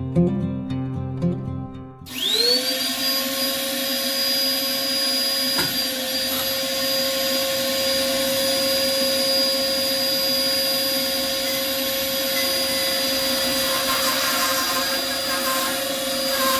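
Acoustic guitar music, cut off about two seconds in by a bandsaw starting up. The motor whines up to speed within about half a second, then the saw runs steadily, a high whine over a loud hiss, as a log is pushed into the blade.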